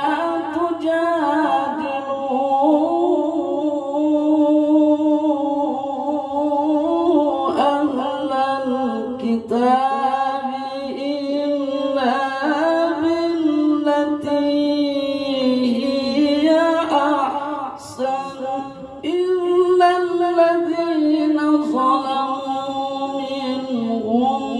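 A male qari reciting the Quran in the melodic tilawah style, unaccompanied. He sings long, held phrases with ornamented rises and falls in pitch, and takes short breaths between them.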